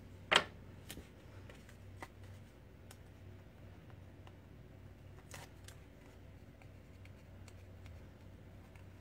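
Paper and cardstock being handled on a craft table: one sharp tap about a third of a second in, then faint scattered rustles and small clicks.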